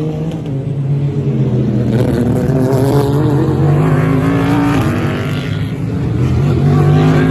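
Several race car engines running hard on track, their notes overlapping and rising and falling in pitch as the cars pass.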